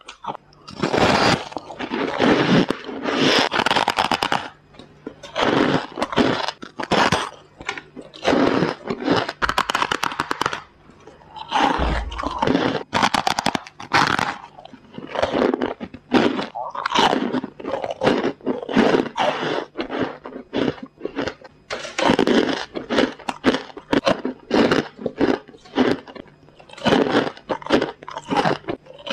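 Freezer frost being bitten and chewed close to a lapel microphone: repeated squeaky, crisp crunches in quick clusters, with short pauses between bites.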